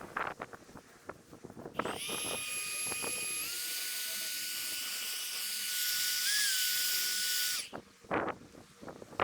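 Steam jetting from a heated piece in a bonfire of dry branches and bamboo: a loud whistling hiss that starts about two seconds in, steps up slightly in pitch partway through and cuts off suddenly, with the fire crackling before and after.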